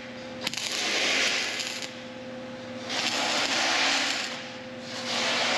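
Wire-feed (MIG) welding arc crackling and hissing in three short bursts of about a second each, with pauses between: tack welds fixing a brush element to a steel plate. A steady hum runs underneath.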